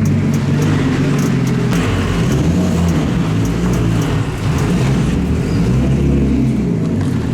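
Nissan Laurel drift car's engine running, its revs rising and falling as it is driven.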